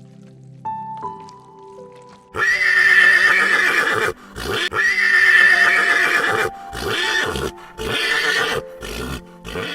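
Horse neighing over soft background music: two long whinnies starting about two and a half seconds in, then several shorter ones.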